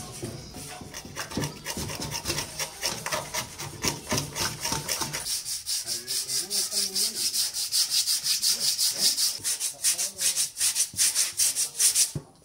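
Old paint being hand-sanded off a Bajaj Discover 125 steel fuel tank: quick back-and-forth scratching strokes, several a second, that grow louder about halfway through.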